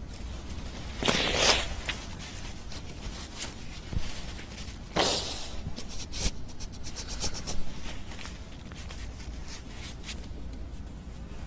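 A congregation weeping quietly: two sharp sniffles, about a second in and about five seconds in, and a run of small clicks and rustles from the crowd around the middle, over a low steady hum.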